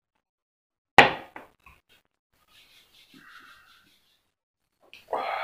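A thick glass beer mug set down hard on a tabletop, a single sharp knock about a second in, with a couple of small clicks after it. Near the end a breathy exhale begins.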